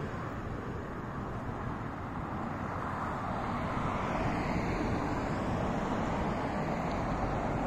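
Road traffic noise from a car passing on the adjacent road, swelling from about halfway through, with wind rumbling on the microphone.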